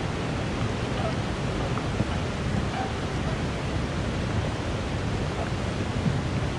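Steady rushing of a canyon creek's rapids, an even roar of water that does not let up.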